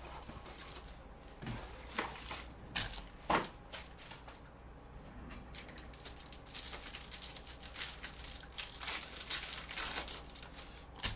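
Foil trading-card pack wrapper crinkling and tearing as it is opened, with scattered knocks and taps of cardboard boxes being handled. The crinkling is densest in the last few seconds.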